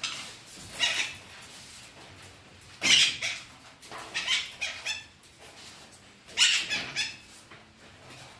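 Green parrot giving a series of short, harsh squawking calls, the loudest about three seconds in.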